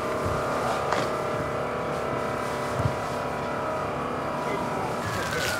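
Steady engine drone from a portable fire pump running to feed a forest-firefighting hose line. Near the end a tone begins to glide downward.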